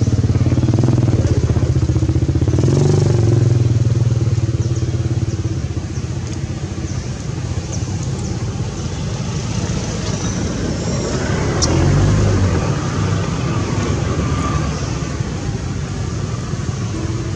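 A motor vehicle engine running steadily, louder over the first few seconds, easing off, then swelling again about twelve seconds in.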